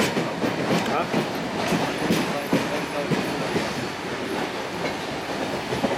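Wheels of a heritage passenger carriage clattering irregularly over rail joints and points as the train rolls along, over a steady running rumble.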